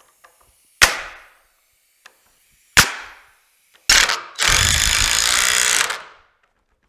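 Two sharp shots from a pneumatic nail gun, about two seconds apart, then a cordless drill runs for about two seconds, driving a screw.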